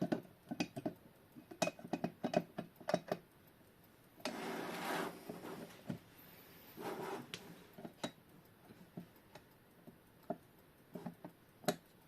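Small clicks and taps of a quartz clock movement and its porcelain case being handled while the movement is worked loose; it is catching behind the magnet assembly. A rustling scrape of about a second comes a little past four seconds in, and a shorter one near seven seconds.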